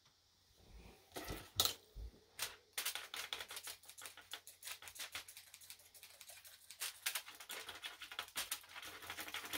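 Plastic knife scraped rapidly back and forth over a wax crayon resting on tin foil, a fast, steady run of scratchy strokes. A few separate knocks come first, about a second in, before the scraping gets going.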